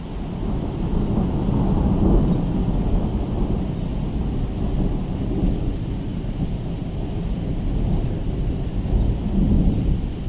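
Thunder rumbling in a rainstorm, a low continuous roll that swells about two seconds in and again near the end.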